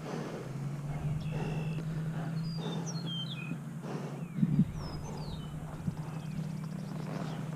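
A horse moving with scattered hoof falls over a steady low hum, a louder thud about four and a half seconds in, and a few short bird chirps.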